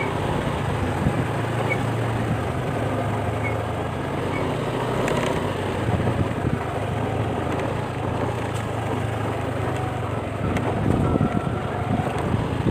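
Motor scooter engine running at low speed, a steady low hum, heard from the rider's seat.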